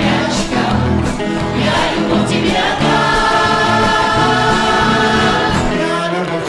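A group of voices singing the song with accompaniment, ending on one long held note that breaks off shortly before the end.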